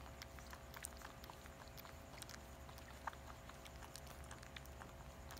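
Faint, irregular little clicks and smacks of newborn Shih Tzu puppies suckling at their mother, over a low steady hum.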